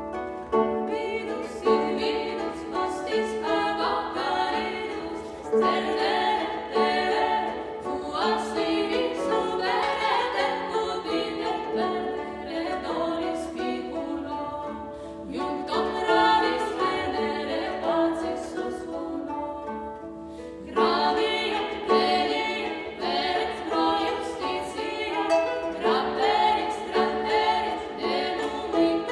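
Early-music ensemble performing medieval sacred music: several voices singing together over instrumental accompaniment with plucked notes. The music thins out briefly about twenty seconds in, then the full ensemble comes back in strongly.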